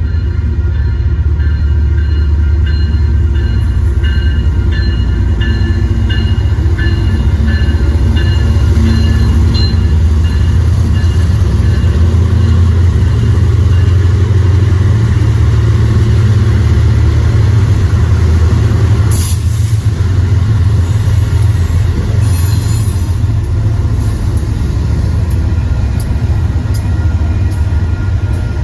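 BNSF manifest freight train rolling past, a steady heavy rumble of wheels on rail that stays loud throughout. Thin high metallic tones ring over it for the first ten seconds or so, and there is one sharp click about nineteen seconds in.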